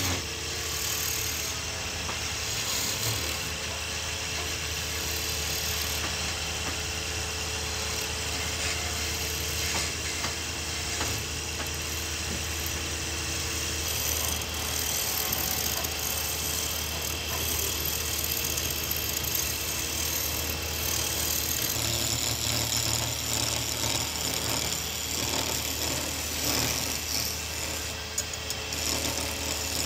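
Wood lathe running with a steady low motor hum while a hand-held gouge cuts into a spinning wooden spindle, the steel scraping off shavings. Near the end a sanding block rubs against the turning wood.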